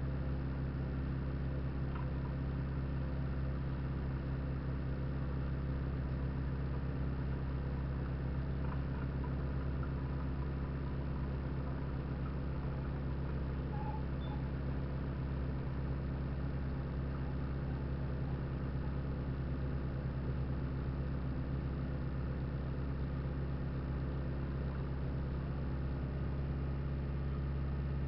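Off-road vehicle's engine idling steadily, a constant low hum.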